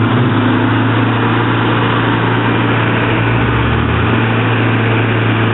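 Car engine running steadily at an even speed, loud and close, a constant low hum.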